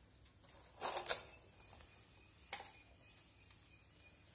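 Metal kitchen vessels knocking and clicking as they are handled: a quick cluster of sharp clicks about a second in, then a single click about two and a half seconds in.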